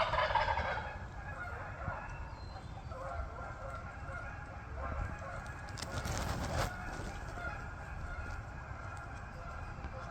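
Wild turkey gobbler gobbling once, a loud rapid rattling call of about a second at the start. Fainter calls follow, with a short burst of crackling about six seconds in.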